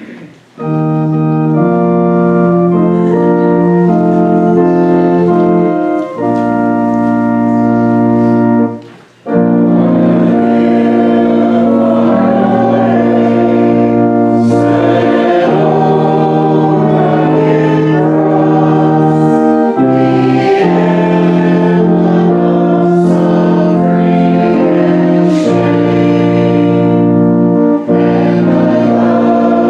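Organ playing a hymn introduction in held chords, then, after a short break about nine seconds in, a congregation starts singing the hymn with the organ accompanying.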